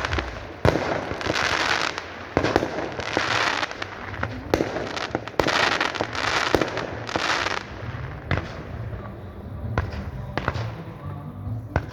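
Fireworks display: sharp bangs of bursting shells over stretches of dense rushing noise, thinning out to scattered bangs after about eight seconds.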